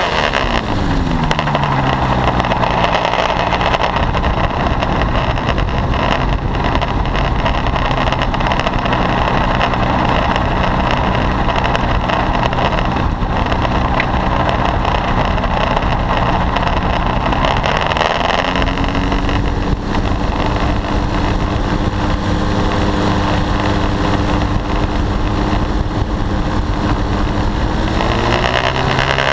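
Paramotor trike's engine and propeller running under part throttle, with wind rushing past: the pitch falls at the start and holds low, steps up about two-thirds of the way through as the throttle is opened a little, and falls again near the end.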